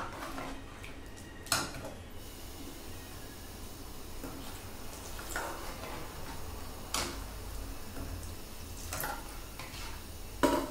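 Small metal spoon stirring and pressing potatoes in a steel kadai of potato curry, with a handful of sharp clinks where the spoon strikes the pan, the loudest shortly after the start and near the end.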